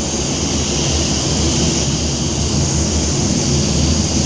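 Handheld compressed-air drying blower hissing steadily, blowing air across freshly sprayed waterborne basecoat to dry out the water before clear coat.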